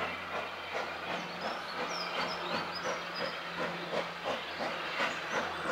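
Steam locomotive working a train, its exhaust beating in a steady chuff of about three beats a second, with the hiss of steam. A steady low hum runs underneath, and a few short bird chirps sound high above.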